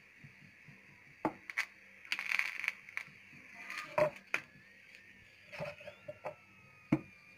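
A metal spatula clicking and scraping on a hot griddle pan as a chapati is turned over. There are a handful of sharp knocks, a short scrape about two seconds in and another cluster of clicks around four seconds, over a faint steady hiss.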